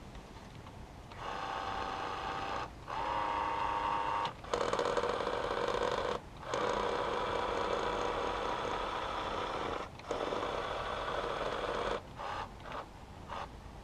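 Small electric motor whirring in five runs of one to three seconds, then a few short blips near the end. This is likely the power mirror's adjustment motor tilting the newly fitted glass.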